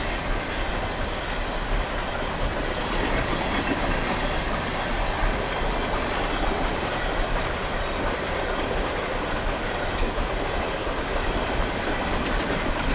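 Train passing on a track about 20 ft away: a steady, loud rumble and rattle of wheels on the rails.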